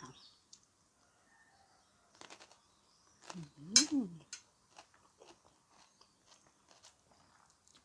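Close-up chewing of food, with small crunches and wet mouth clicks scattered throughout. About halfway through comes a short hummed "mm".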